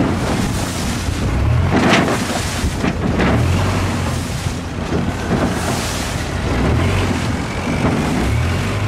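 Motorboat under way: the engine runs steadily with water rushing along the hull, and wind buffets the microphone in an uneven low rumble, with louder rushes of spray about two and three seconds in.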